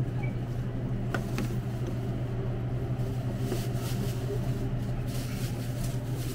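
Steady low machine hum, with a few faint clicks about a second in.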